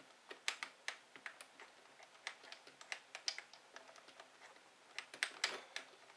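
Irregular light clicks and taps of small metal and plastic parts being handled as a drive shaft is worked onto the output shaft of an RC truck kit's transfer case.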